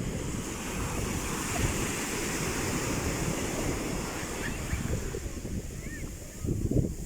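Sea waves washing onto a shore, with wind buffeting the microphone and a wave surging up near the end.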